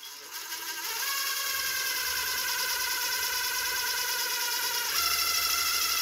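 Cordless drill running steadily, boring a rivet hole through a sheet-metal plate into a steel bicycle frame tube. The motor whine steps up in pitch about a second in and gets a little louder near the end.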